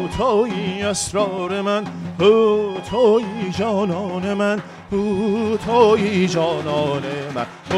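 Persian music played live: an end-blown ney flute plays a wavering, heavily ornamented melody over a steady low tone, with occasional strokes on a daf frame drum.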